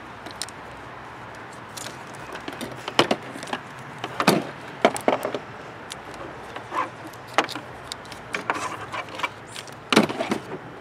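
Hand tools being picked up, handled and set down on a plastic work table: scattered light clicks and taps.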